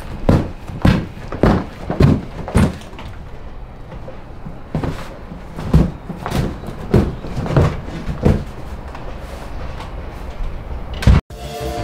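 Thuds of a person hopping inside a large cardboard box across a tiled floor, about two a second, with a short pause in the middle. A glass-paned door is then opened and shut, and a single sharp bang comes near the end.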